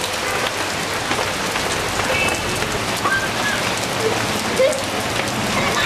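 Steady hiss of rain falling on a flooded road, with children splashing in the water and a few short, faint shouts.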